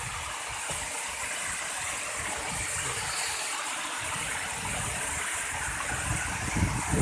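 Waterfall water falling and rushing steadily, an even hiss, with a few low thumps near the end.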